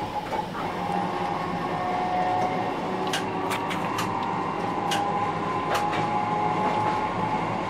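Dubbed-in sound effect of an old electric train running: a steady rumble with a hum, and several sharp clicks between about three and six seconds in.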